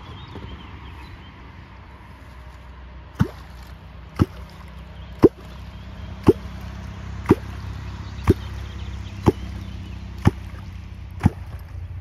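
A catfish clonk (Wallerholz) struck on the water surface about once a second, nine even strokes starting about three seconds in, each a short sound falling in pitch: clonking to lure catfish up to the bait.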